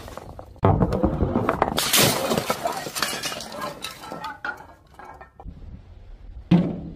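Glass smashing as balls strike glass objects: a sharp crash about half a second in, a bigger crash near two seconds, then shards clinking and settling as the noise fades. One sharp knock near the end.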